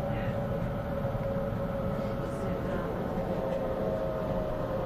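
Inside a Waratah A-set electric train running into a station: a steady rumble with an even motor whine, and a second, slightly higher whine joining about three and a half seconds in.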